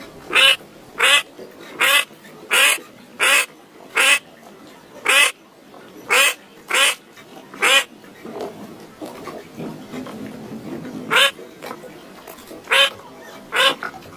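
An animal giving short calls over and over, roughly one every second, with a break of about three seconds in the middle before the calls start again.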